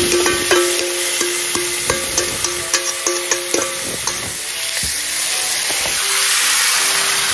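Marinated pork sizzling as it slides into a hot pan. Tongs clink and scrape against the metal bowl and pan, with a ringing tone, for the first few seconds. After that comes a steady frying sizzle as the meat is stirred.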